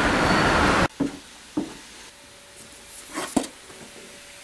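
Loud outdoor traffic noise cuts off suddenly about a second in. It gives way to a quiet room with a few short knocks and taps from books being handled on a shelf, over a faint steady hum.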